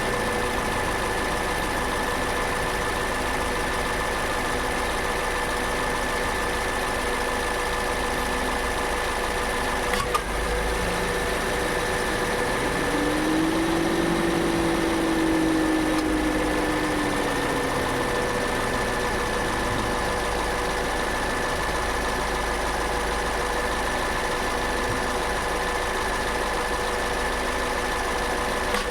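Steady hum of the Toyota Innova Hycross running, broken about ten seconds in by one sharp 'tock' as the AC compressor kicks on. The owner does not know the cause and says the noise is new and growing more pronounced. A few seconds after the tock, a lower hum rises in pitch and falls back.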